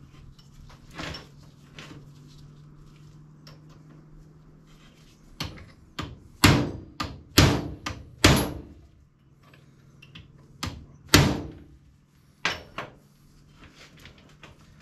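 Hammer blows on a roller drive chain laid on a wooden block in a bench vise: about nine sharp metallic strikes, some in quick pairs, the loudest four between about six and eleven seconds in.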